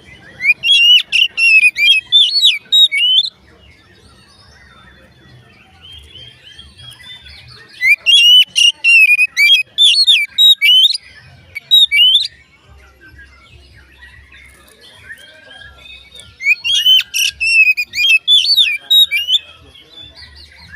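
Oriental magpie-robin (kacer) singing: three long bursts of rapid, varied whistled phrases with quick up-and-down sweeps, each lasting three to four seconds, separated by pauses of several seconds.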